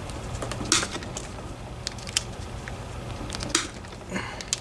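Scattered sharp clicks and taps of small metal lock parts and tools being handled while a DOM IX 10 dimple lock is taken apart, with a brief scrape near the end, over a steady low hum.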